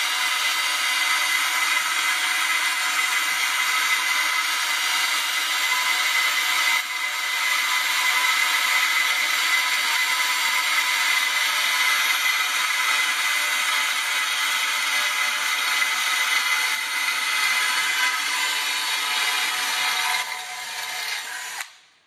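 Cordless drill running steadily with a high whine, its bit cutting into an aluminium bracket plate. It dips briefly once, eases near the end and then stops.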